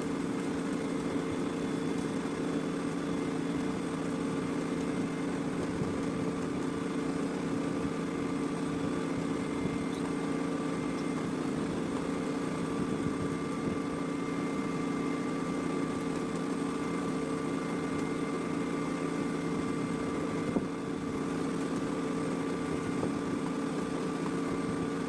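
Small electric motor running steadily with a constant hum, and a single click about 20 seconds in.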